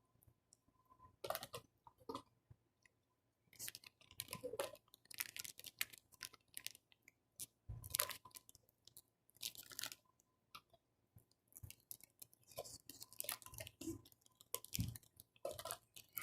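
A person chewing crunchy food close to the microphone: irregular runs of crisp crunching with short pauses in between.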